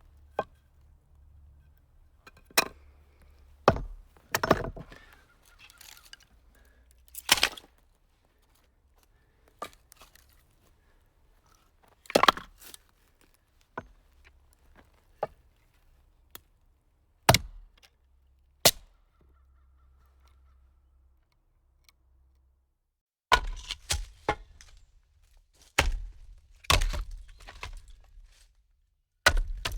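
A series of sharp, separate impact hits: knocks and cracks, about fifteen in all at irregular spacing, with a pause of a few seconds midway and a quick cluster of hits near the end.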